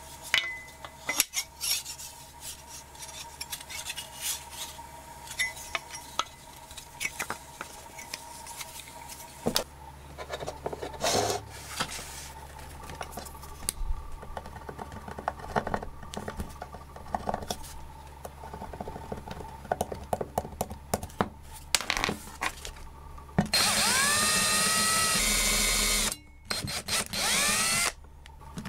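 Light knocks, clicks and rubbing as a saw blade and wooden handle are handled on a wooden table. Near the end a cordless drill starts, its motor whine rising as it spins up, then stops and runs again in a few short bursts.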